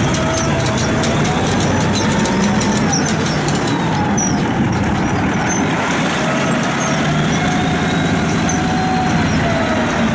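Diesel engine of an International 442 paddle wheel scraper idling steadily, with a faint whine that wavers up and down in pitch above the engine note.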